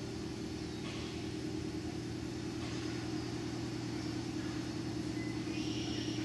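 Steady low hum of a running motor, holding one pitch without change, with a few faint brief rustles over it.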